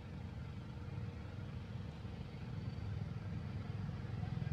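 Steady low outdoor rumble, growing a little louder near the end.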